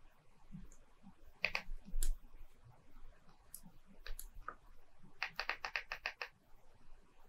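Computer keyboard keys clicking faintly: a few scattered presses, then a quick run of about eight presses in a row near the end.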